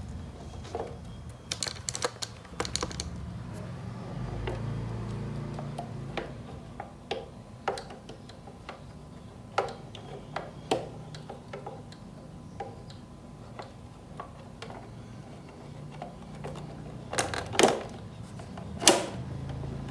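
Scattered clicks and taps of hands handling and closing the casing of a Roland SPD-SX sampling pad, with a few sharper knocks near the end.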